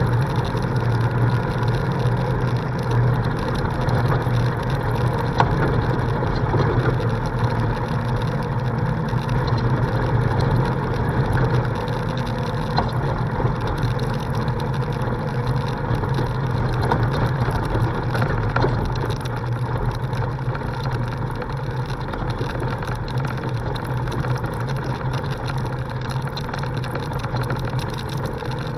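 Polaris RZR side-by-side driving on a gravel dirt road: a steady low engine and drivetrain drone, with tyre and gravel noise and occasional clicks and knocks from stones and rattles. It eases slightly in the last third.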